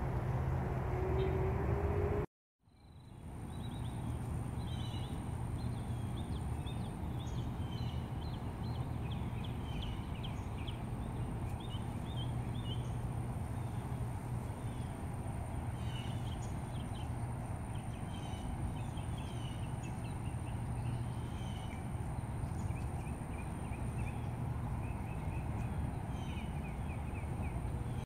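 Outdoor ambience: small birds chirping and twittering again and again over a steady low rumble, with a faint steady high whine through most of it. The sound cuts out for a moment about two seconds in.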